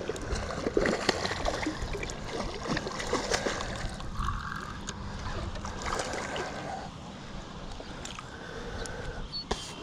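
Water splashing and sloshing irregularly, busiest in the first few seconds and calmer after.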